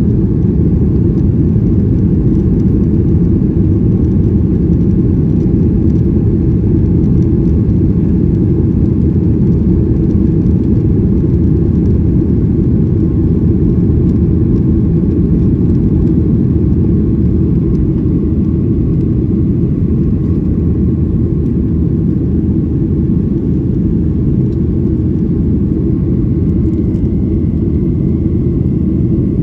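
Steady low rumble inside a jet airliner's passenger cabin in flight: engine and airflow noise heard from a window seat.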